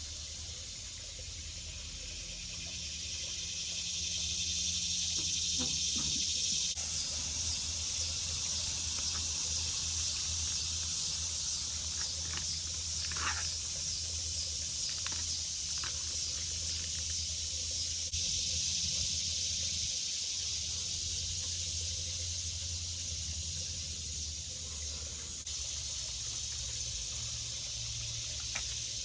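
Steady hissing noise over a low hum, shifting abruptly a few times, with a few faint clicks in the middle.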